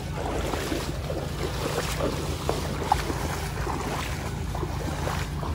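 Feet wading through shallow muddy floodwater, sloshing and splashing with each step, over a steady low rumble.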